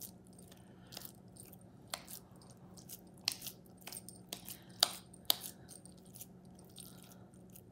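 Raw ground beef being rolled and pressed between the palms into a burger patty: soft, irregular wet clicks and smacks, with a few sharper ones about three to five seconds in.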